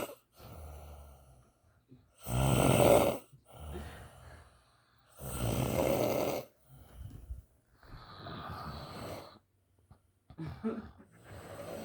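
A man snoring in his sleep: long snores on the in-breath about every three seconds, two of them loud, with softer breaths out between.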